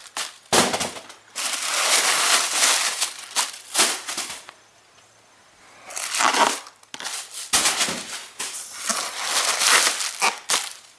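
Cardboard shipping box and its packing being torn open and handled: a series of loud crackling, rustling bursts with a pause of a second or two in the middle.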